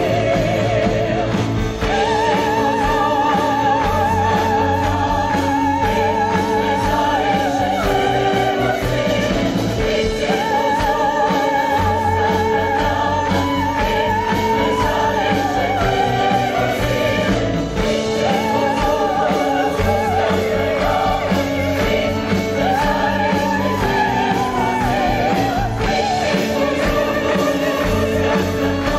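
A woman singing a song into a microphone, holding long notes with vibrato, over a choir and live instrumental accompaniment.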